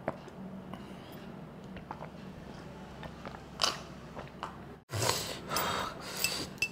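Close-up eating sounds: quiet sips and swallows of water from a glass, then after an abrupt cut, wet squelching as fingers work into a thick mutton curry.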